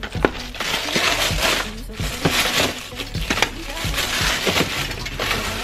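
Background music with a steady beat, over the crinkling and rustling of a cardboard frozen-waffle box being handled.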